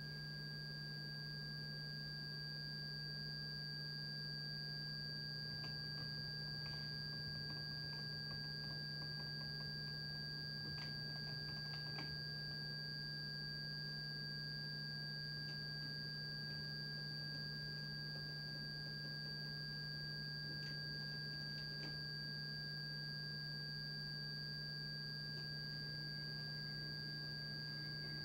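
Steady electronic drone of held pure sine tones: a low hum with two high, thin tones above it, unchanging throughout. A few faint clicks and taps sound in the middle and again later.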